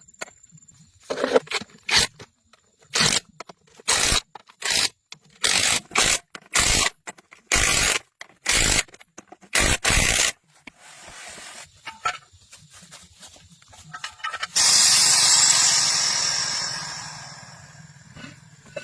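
A series of short scraping strokes, about one a second, followed by a loud hiss that starts late and fades away over a few seconds.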